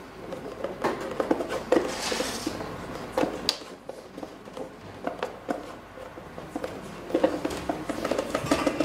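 Irregular light clicks and knocks of containers and utensils being handled on a kitchen worktop, with a brief rustling hiss about two seconds in.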